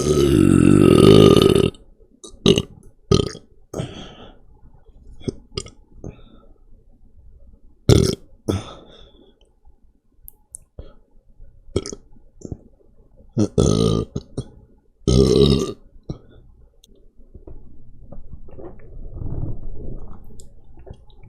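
A person burping again and again after chugging a can of beer. It opens with one long burp of about two seconds, followed by a string of short burps with gaps between them, two of them louder about two-thirds of the way through.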